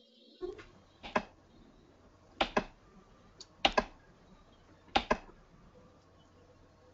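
Computer mouse clicking: a single click, then three quick double-clicks spaced about a second and a quarter apart, over a faint steady hiss.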